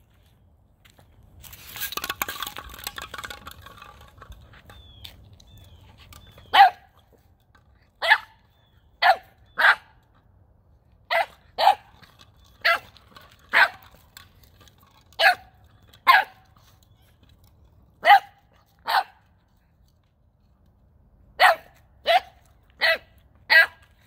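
A 9-week-old boxer puppy barking: about sixteen short, sharp barks, often in pairs, beginning about a quarter of the way in. These are his first real barks rather than puppy yelps. Before the barks there is a brief scuffling rustle.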